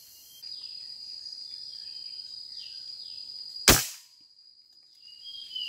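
A single sharp gunshot from a scoped hunting gun fired at a bird in a tree, a little past halfway, ringing off briefly.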